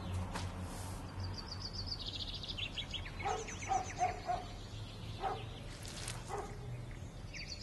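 Outdoor birdsong: rapid trills of high chirps, repeated several times, with a few short lower calls in the middle. Near the start there are a couple of soft steps in wet concrete.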